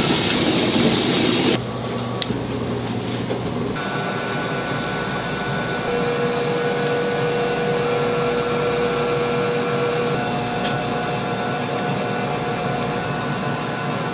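Tap water running for about a second and a half and cutting off. Then a steady machine hum with a few faint whining tones of kitchen equipment running.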